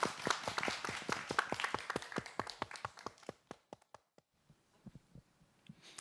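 Audience applauding, the clapping thinning out and dying away about three seconds in, followed by a few scattered last claps.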